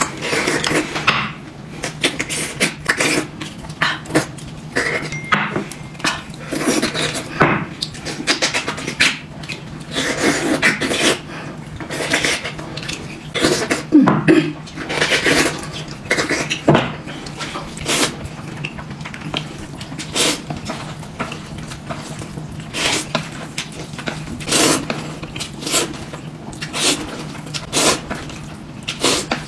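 Eating at a table: irregular clinks, knocks and scrapes of dishes and utensils mixed with mouth sounds of eating, all through. A faint steady low hum runs underneath.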